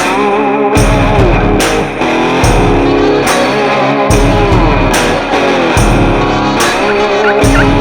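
Rock music with a steady drum beat, bass and a bending electric guitar lead.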